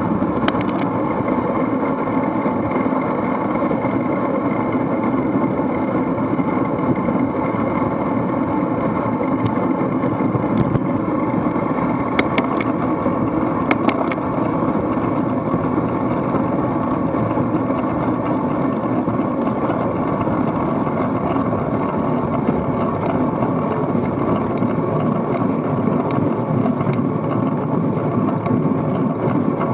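Steady wind rush over a bicycle-mounted camera's microphone, mixed with tyre and road noise, while riding in a pack of racing cyclists. A few sharp clicks come about twelve to fourteen seconds in.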